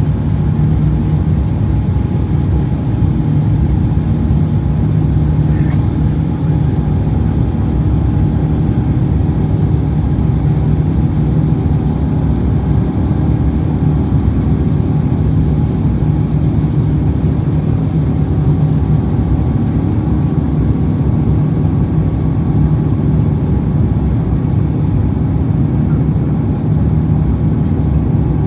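Airbus A350 cabin noise from inside the aircraft: the Rolls-Royce Trent XWB engines and airflow make a steady, loud, low rumble with faint steady tones at a constant level.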